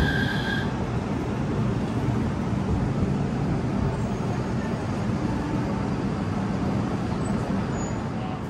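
Utsunomiya Light Line low-floor tram pulling in at the platform: a high steady squeal ends just under a second in, leaving a steady low rumble.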